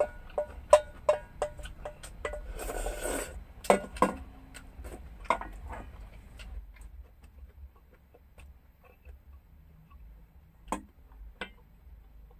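A spoon clinking and scraping rapidly against a stainless steel bowl as the last of the food is scooped out, each tap making the bowl ring briefly, with a longer scrape about two to three seconds in. It then goes quieter, with two more clinks near the end.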